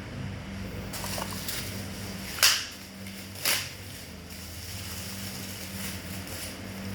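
Two short crinkling rustles of packaging being handled, about two and a half and three and a half seconds in, over a steady low hum.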